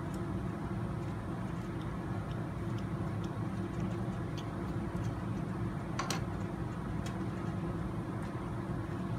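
Steady low background hum, with faint small clicks from a nut driver and an RC steering knuckle being handled, and one sharper click about six seconds in.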